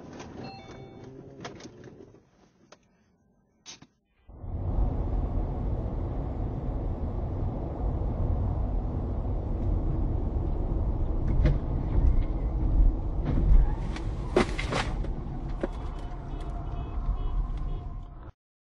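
Steady road and engine noise of a car driving on a highway, heard from inside the car, with a few sharp clicks along the way. It starts suddenly after a brief silence and cuts off abruptly near the end.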